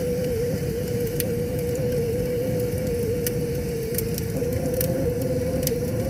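Wood fire burning in a metal fire pit: a low, steady rumble of flames with a steady hum underneath, and sharp crackles and pops of the burning logs every second or so.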